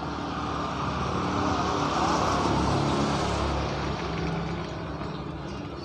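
Engine noise of something passing by, swelling to a peak about two to three seconds in and then fading away.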